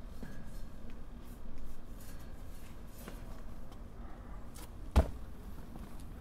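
Rustling and small knocks of a person climbing over a railing, over a low rumble, with one sharp thump about five seconds in.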